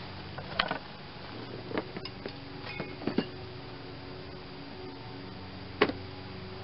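Small metal clicks and clinks of Allen keys being picked out and tried in a socket-head bolt, about half a dozen, one with a brief metallic ring; the sharpest click comes near the end. A faint steady hum runs underneath.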